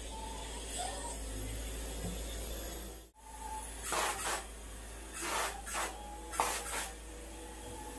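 Polyurethane spray-foam gun spraying in several short hissing bursts in the second half, over a steady low hum of the spraying equipment; the sound drops out briefly about three seconds in.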